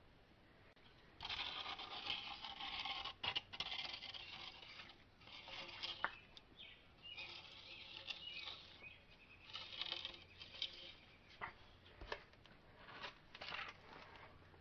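A cardboard guide being worked into a rusty steel axle tube, scraping and rustling against the metal in several irregular bursts, with a few sharp clicks near the end.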